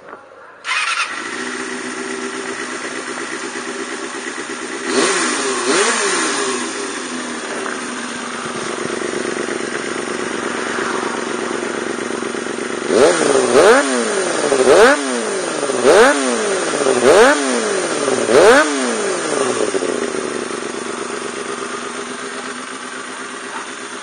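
1990 Kawasaki ZXR250's 250 cc inline-four firing up under a second in, through a BEET Nassert-R header and stainless 90 mm by 420 mm aftermarket silencer, and settling to a steady idle. It is blipped twice around five seconds in. Then comes a quick run of six sharp revs, each rising and falling, before it drops back to idle.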